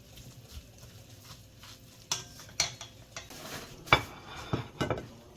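Kitchen utensils clinking and knocking against dishes and pots, a few separate strikes in the second half with one sharper clink near the end.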